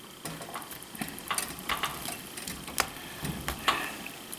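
Butter sizzling under a tortilla in a skillet: a low steady hiss broken by irregular crackles and pops.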